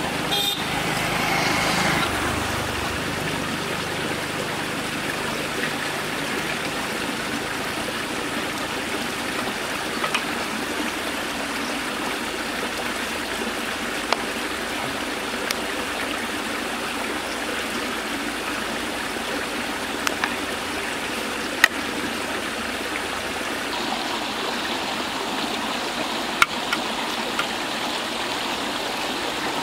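Water pouring steadily out of pipe outlets into a shallow channel, an even rushing and splashing. A few sharp clicks stand out now and then, the loudest about two-thirds of the way in.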